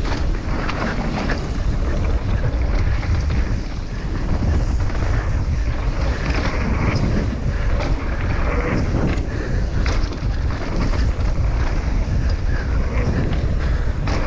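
Wind rushing over the microphone of a camera worn by a mountain biker riding fast down a dirt trail, with tyres on dirt and frequent knocks and rattles from the bike over the bumps.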